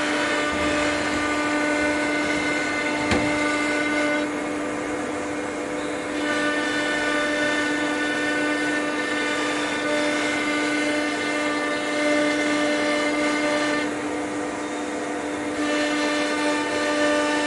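Blue Elephant 1530 ATC CNC router running its program automatically: a steady, high spindle whine with many overtones. The whine's upper tones shift about four seconds in and again near the end, and there is a short click about three seconds in.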